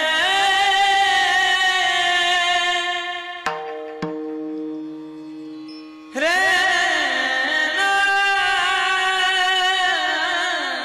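A man singing a devotional melody in long, ornamented held notes. About three and a half seconds in the voice breaks off, leaving two clicks and a few steady held accompanying notes, and it comes back strongly about six seconds in.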